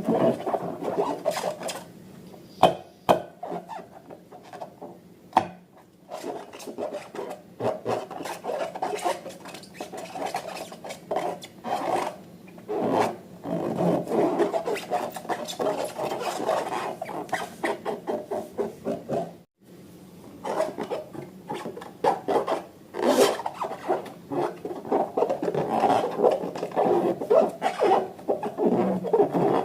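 Close-up handling sounds of balloons and slime: irregular rubbing, squishing and crackling with many sharp clicks and pops, broken by a brief cut a little before the midpoint.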